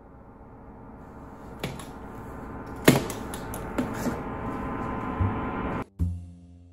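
Clicks and knocks of a metal-edged carry case being handled on a tabletop, the loudest about three seconds in. Under them a steady multi-pitched drone swells slowly louder, then cuts off abruptly near the end with a deep thump.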